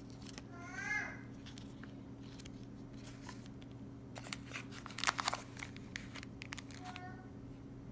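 Packaging being handled during an unboxing: scattered clicks and crinkles of plastic and cardboard, loudest a little past the middle. A short, high, wavering squeak comes about a second in, and a shorter one near the end.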